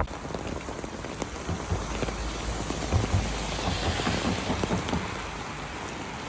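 Rain falling steadily: an even hiss with the patter of many drops, and a low rumble underneath for a few seconds in the middle.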